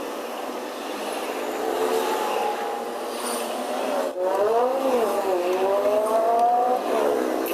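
Honda Vario scooter engine running and being revved, its pitch rising and falling, with a sharp dip about four seconds in before it climbs again. This engine has a 'klotok' knocking noise that the mechanic puts down to a worn cam chain tensioner rather than the piston or conrod.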